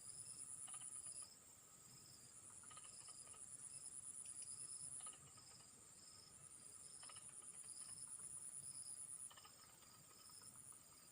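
Insects singing: a high, rapidly pulsing buzz comes in long trains of about three to four seconds with short gaps between them, over a steady high chorus of other insects and a short chirp repeated about twice a second.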